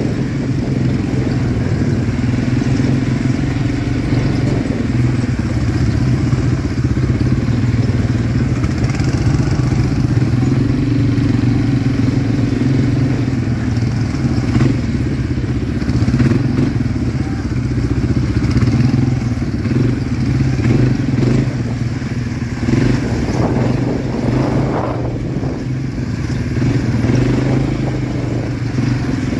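ATV engine running while being ridden over a trail, holding a fairly steady note that rises and falls a little with the throttle. A few short knocks and clatters are heard along the way.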